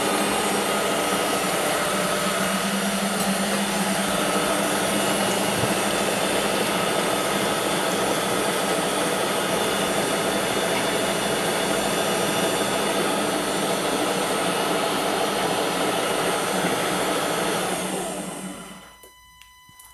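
Bosch Cookit kitchen machine spinning its universal knife at speed 13, chopping strawberries to a pulp: a loud, steady whir that winds down and stops near the end.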